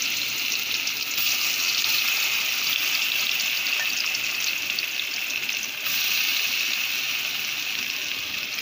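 Masala-coated raw banana slices sizzling in hot oil in a kadai: a steady frying hiss with small crackles.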